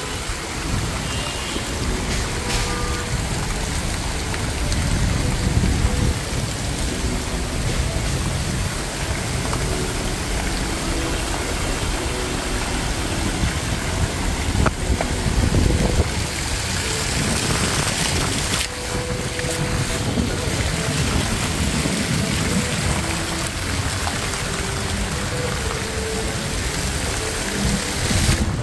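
Outdoor city street ambience: a steady, dense hiss of background noise with faint distant voices.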